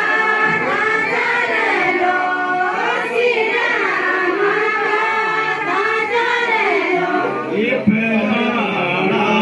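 A group of voices singing a Kumaoni jhoda-chanchari folk song together, in a melody that rises and falls in repeated phrases. About eight seconds in there is a click, and a steady low held note comes in under the singing.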